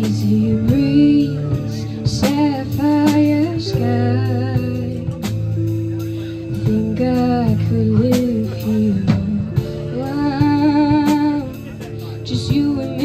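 Live psychedelic jazz band playing: a drum kit keeping a steady beat and a bass line under a lead melody that bends and wavers in pitch.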